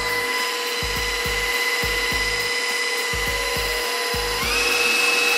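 KitchenAid Professional stand mixer running with a steady motor whine as its beater works cake batter, with low thuds recurring underneath. A little past four seconds in, the whine steps up to a higher pitch as the speed is turned up to setting 5.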